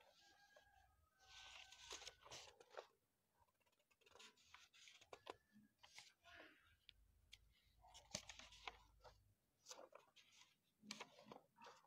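Faint rustling of paper pages being turned and shuffled, in several spells of a second or two, with a few light clicks between.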